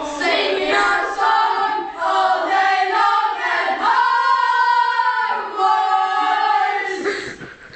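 A group of young voices singing together in long held notes.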